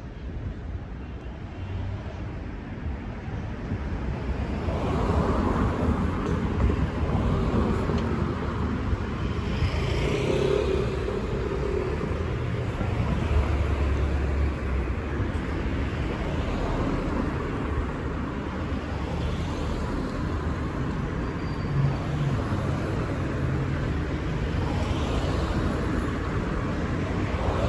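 City street traffic: cars driving along a narrow residential street, a steady rumble of engines and tyres that grows louder about four seconds in.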